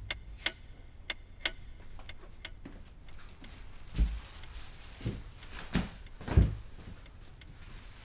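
Sharp ticking, about two a second, that fades out a few seconds in, then four dull thumps, the last the loudest.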